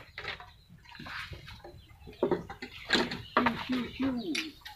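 Domestic chickens clucking in a string of short calls, most of them in the second half.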